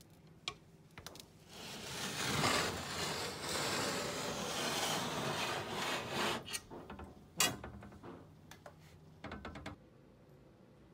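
Dry straw bedding rustling and scraping for about four seconds as a snake shifts and coils around its prey. This is followed by a few sharp clicks and knocks, the loudest near the middle and a quick run of them near the end.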